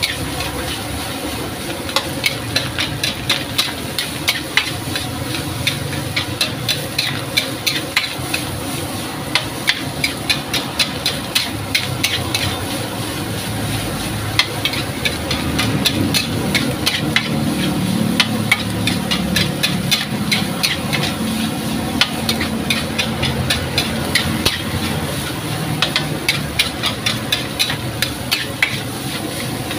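A metal spatula clanks and scrapes against a steel wok many times a second as fried rice is tossed and stir-fried, over a steady sizzling hiss from the pan.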